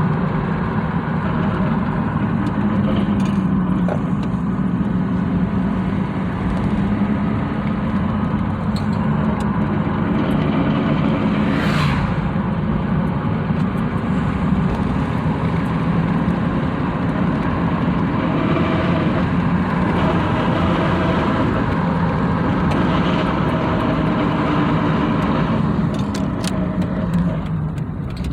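A 1999 Dodge Durango 4x4 running, a steady low drone of engine and drivetrain, with a brief sharp sound about twelve seconds in. The owner is chasing a noise from the front of the truck that comes when he lets off the gas.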